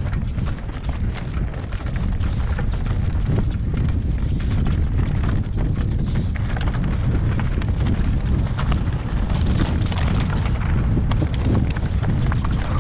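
Mountain bike rattling over rough, rocky trail on a descent: a continuous heavy low rumble on the microphone with a quick, irregular clatter of knocks from the bike.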